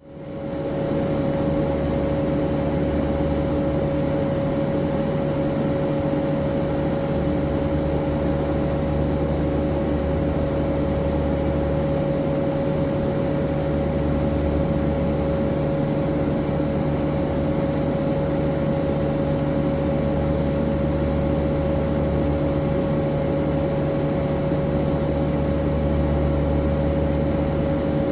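Cabin of a C-2 Greyhound in flight: the steady drone of its twin turboprop engines and propellers, a few steady tones over a deep rumble that slowly swells and fades.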